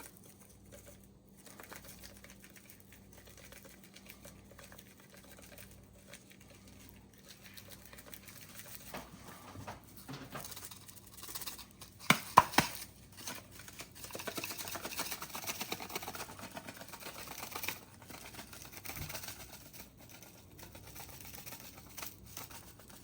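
Seasoning being shaken from a spice shaker over raw catfish pieces, with faint pattering and rustling of handling. A couple of sharp taps about halfway through are the loudest sounds.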